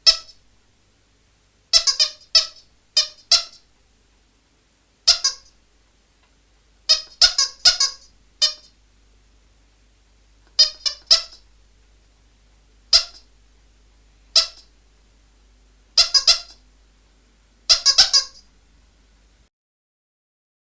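Kitten mewing: short, high, squeaky mews, singly or in quick runs of two to four, with pauses between.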